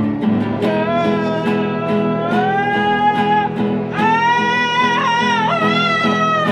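A voice singing long held notes that slide upward, over a strummed acoustic guitar.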